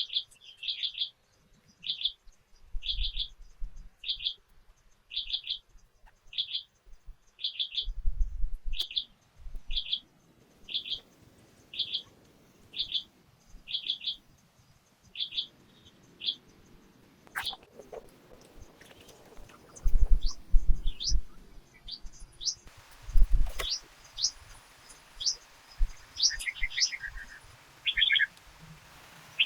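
Forest birds calling: one bird repeats a short chirp about once a second for the first half, then other birds give varied quick chirps and downward whistles. Low dull thumps come a few times among the calls.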